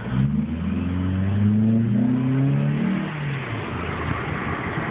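Honda Accord engine breathing through a custom cold air intake under acceleration: the intake sound rises in pitch for about three seconds, then eases off and gives way to road and wind noise through the open windows.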